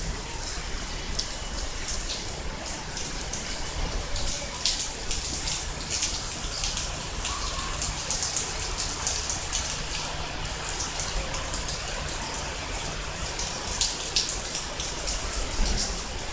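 Steady rain falling on wet pavement, with frequent sharp drops and drips of water close by.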